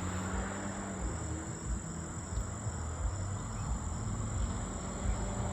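Outdoor ambience: a steady, high-pitched insect trill over a low rumble.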